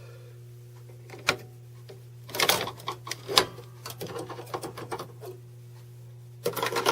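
CNC eyeglass frame tracer chattering: irregular bursts of rapid mechanical clicking and rattling over a steady low machine hum. The chatter is the fault the owner describes, the stylus failing to register back to its home position after a trace.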